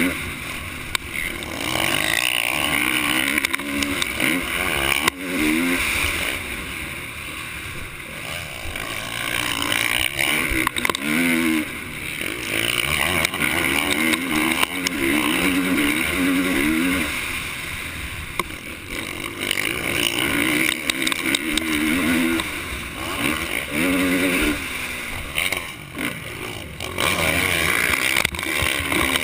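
450cc motocross bike engine revving hard under racing load, its pitch rising and dropping again and again as the rider accelerates, shifts and rolls off for corners.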